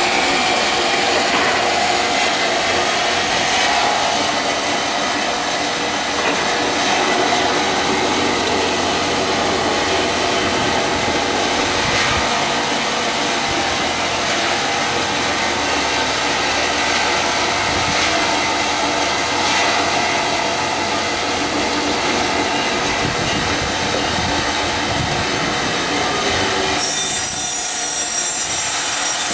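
Power sawing machine cutting ironwood, running steadily with a dense, continuous cutting noise. Near the end the sound shifts abruptly and the highest pitches get stronger.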